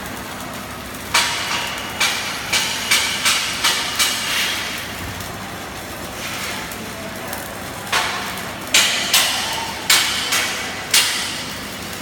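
Hammer striking metal in two runs of sharp, ringing blows, about eight in quick succession and then, after a pause, about six more, over a steady workshop hum.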